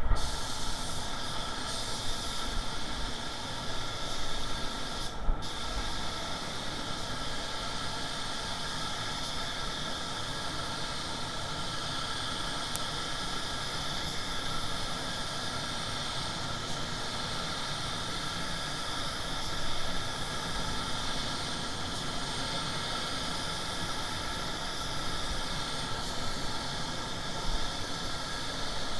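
Compressed-air paint spray gun hissing steadily as it sprays paint, with a brief break about five seconds in.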